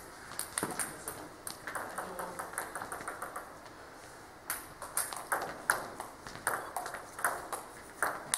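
Table tennis ball being hit back and forth: sharp clicks off the bats and bounces on the table. Scattered clicks come first, then a short lull, and about halfway in a new rally starts with strikes two to three times a second.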